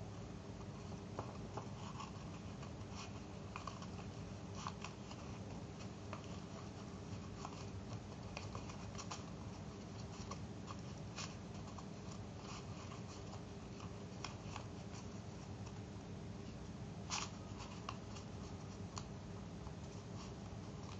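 Paper crinkling and rustling between the fingers as a small pleated paper strip is creased and folded by hand, with short crisp crackles scattered throughout and one louder crackle about 17 seconds in. A steady low hum runs underneath.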